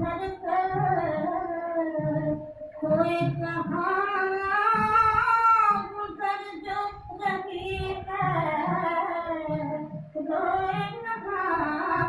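Female voice singing a Hindi film song over instrumental accompaniment with a steady low drum beat, played from a 78 rpm record on a Garrard record player.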